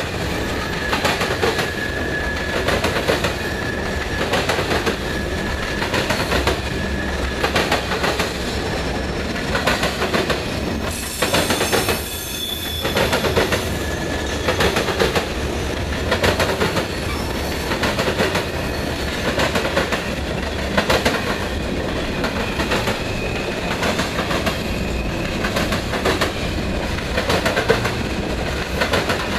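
Freight train's covered hopper cars rolling past at speed: a steady rumble with the wheels clattering rhythmically over the rails, and a thin wheel squeal in the first few seconds.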